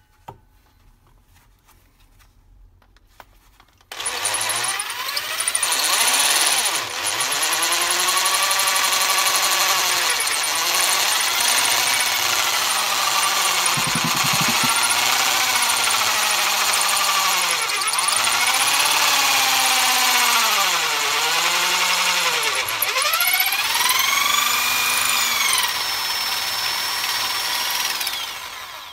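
Electric drill with a diamond-tipped bit drilling into marble, starting about four seconds in and stopping near the end. The motor's pitch repeatedly dips and recovers as it is pressed into the stone.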